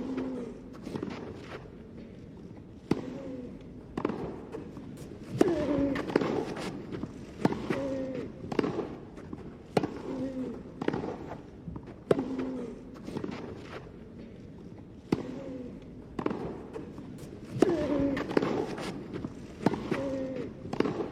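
Tennis rally: sharp racket strikes on the ball about every second, many of them joined by short grunts or shouts from the players.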